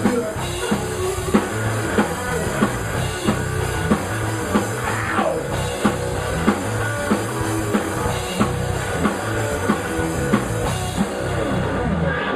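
Live rock band playing an instrumental passage: drum kit keeping a steady beat under bass and electric guitar. Just before the end the drums and bass stop, leaving the guitar alone.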